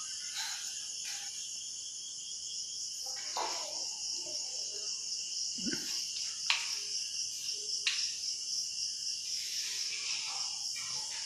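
Steady high-pitched chirring of insects, crickets by the sound of it, running throughout, with a brief low thump a little before the middle and two sharp clicks about six and a half and eight seconds in.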